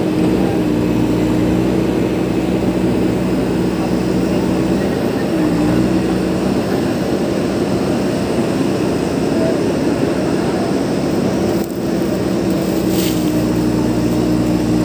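JCB backhoe loader's diesel engine running at a steady, even drone, its pitch shifting briefly about five seconds in.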